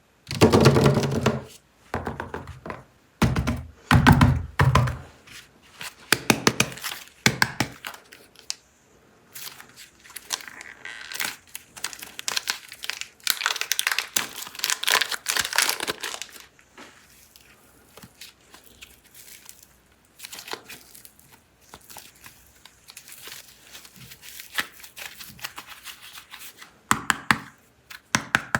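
Super clay packaging being torn open and crinkled by hand: irregular ripping and rustling with sharp clicks, loudest in the first few seconds, then quieter scattered rustles.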